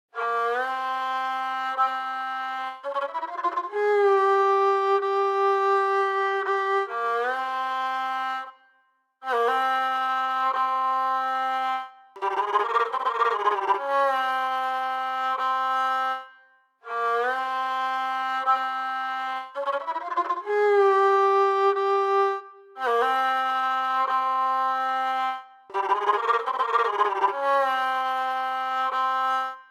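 Sampled bowed string instrument from a Middle Eastern virtual-instrument library, playing a slow melodic phrase of long held notes joined by pitch slides, with a more ornamented, wavering passage in the middle. The phrase is played twice, with short breaks between sections.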